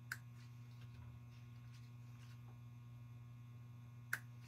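Steady low electrical hum, with two small sharp clicks about four seconds apart from a rhinestone pick-up tool tapping as red rhinestones are set onto cardstock.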